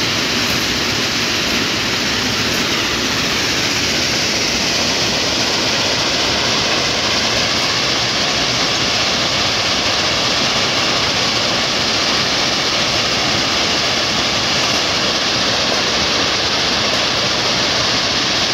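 Stone crushing plant running: a loud, steady noise of machinery and stone with no distinct rhythm.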